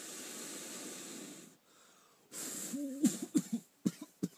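A man blowing a long, steady breath into a smouldering wasp-nest tinder bundle to coax the ember toward flame. He blows again, then breaks into several short coughs from the smoke.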